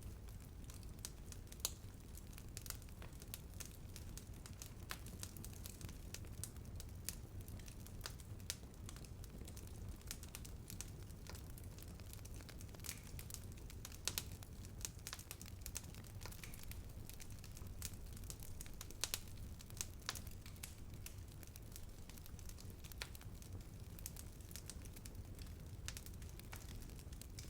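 Wood fire burning steadily with a low rumble and frequent irregular sharp crackles and pops.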